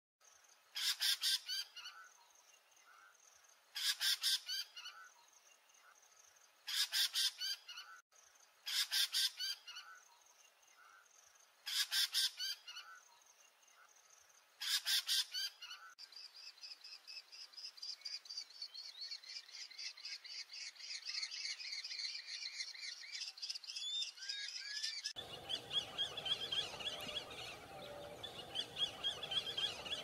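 Red-necked falcon calling: shrill bursts of rapid repeated notes, six of them about three seconds apart, then a long unbroken chattering run of high notes. Near the end the background gets noisier and the notes change.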